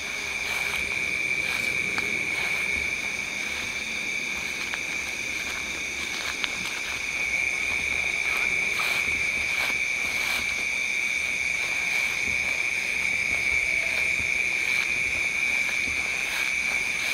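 Night chorus of insects and frogs: a steady, unbroken high-pitched drone, with a few faint soft clicks among it.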